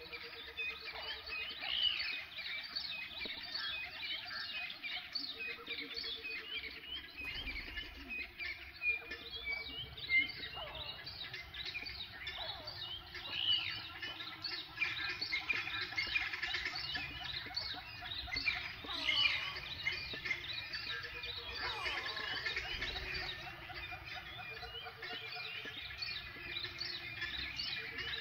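Many wild birds chirping and calling at once in a dense, continuous chorus. A low, pulsed trill about a second long recurs every few seconds beneath it.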